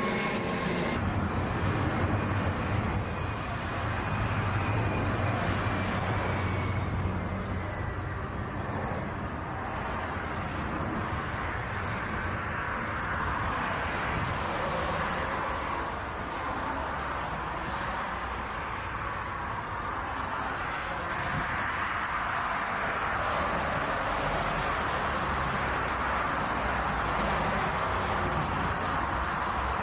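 Jet engines of a twin-engine narrow-body airliner on final approach and touchdown: a steady rushing noise, with a whine that slides down in pitch over the first several seconds.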